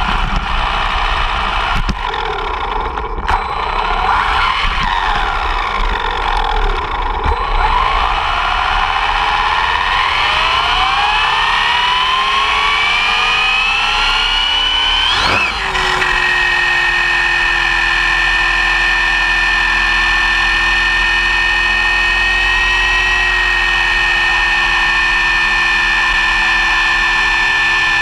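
Brushless electric motor and drivetrain of an ARRMA Typhon 6S RC buggy whining, heard from a camera mounted on the car. Short throttle bursts come first, then a long rising whine as it accelerates. About halfway there is a sharp knock and the pitch drops, and after that a steady high whine holds at speed over road rumble.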